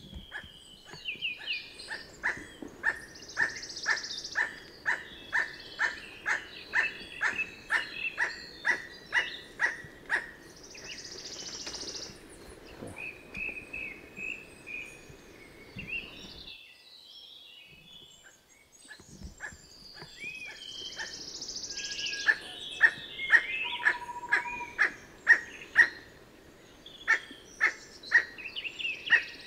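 Emerald toucanet calling: a long series of short, evenly spaced calls, about two a second, with higher chirps from other birds. The calling stops for a few seconds past the middle, and a second series starts about 22 seconds in.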